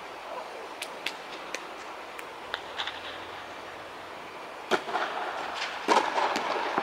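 Tennis racket striking the ball: a sharp serve hit a little under five seconds in, and the return about a second later, with a few faint clicks before.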